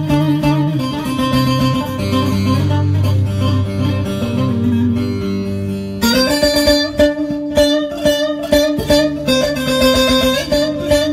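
Bağlama (saz), the long-necked Turkish lute, played with a plectrum in an instrumental passage without singing. About six seconds in it changes abruptly from ringing held notes to fast, sharp picked strokes.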